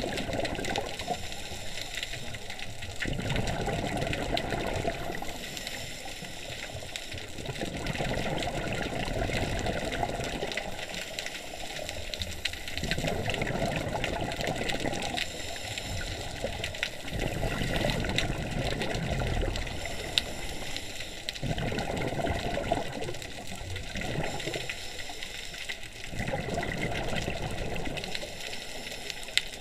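Scuba diver's regulator breathing underwater: exhaled air bubbling and gurgling in surges every few seconds, over a steady hiss.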